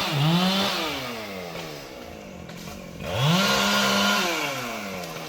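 Two-stroke chainsaw revved twice without cutting: a quick throttle blip at the start, then a second rise about three seconds in that holds for about a second. Each time the engine note falls slowly back toward idle.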